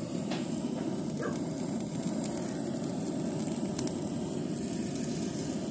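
Butane canister blow torch burning steadily, a continuous rushing flame noise, with a couple of faint clicks.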